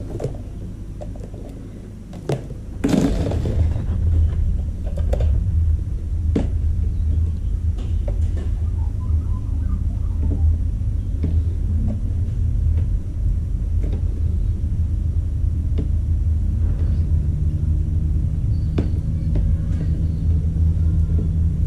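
A steady low rumble sets in about three seconds in and runs on as the loudest sound. Over it come scattered light clicks and rustles as insulated copper wire is pulled out of its split casing by hand.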